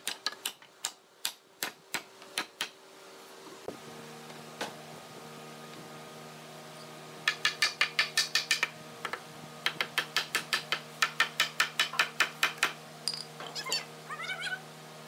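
Wooden mallet knocking on a red hardwood door frame, driving its mortise-and-tenon joints home: a run of knocks at first, a pause, then fast volleys of about six blows a second from about seven seconds in. A steady machine hum starts about four seconds in, and a few short squeaks come near the end.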